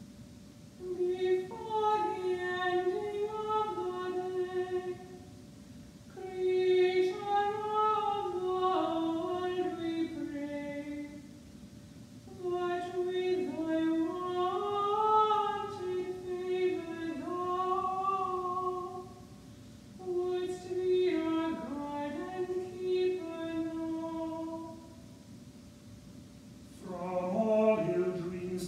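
A solo female cantor chanting unaccompanied plainsong in four phrases, with short breathing pauses between them. Near the end a second, lower voice begins its own chanted phrase.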